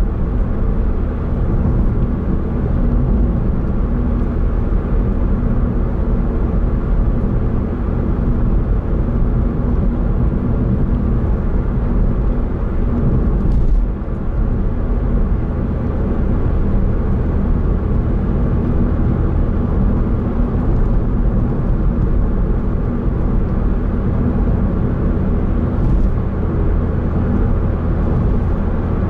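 Steady road noise heard inside a moving car's cabin: a continuous low rumble of tyres and engine while cruising at road speed.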